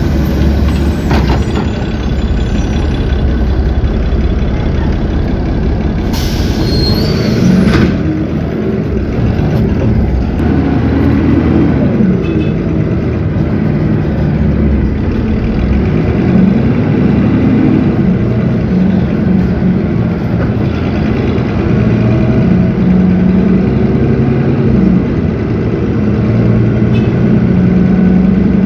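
Cummins ISB 6.7 six-cylinder diesel engine of a city bus running under way, its pitch rising and falling as it pulls through the Allison automatic's gears. Two short hisses of air, at the very start and about six seconds in.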